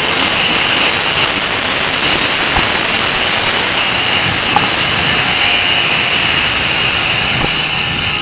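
Dirt bike engine running while riding along a forest dirt track, heard through steady wind rush on a helmet-mounted camera's microphone.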